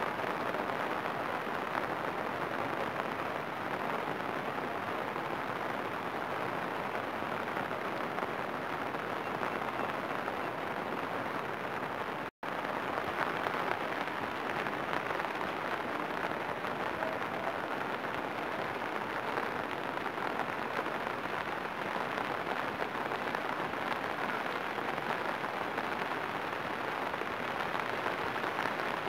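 Steady rain falling on open floodwater, an even hiss with no let-up, broken only by a momentary gap about twelve seconds in.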